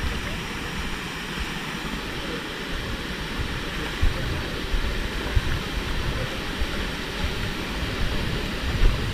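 Steady rush of a waterfall and the shallow rocky stream below it, with a few short low thumps.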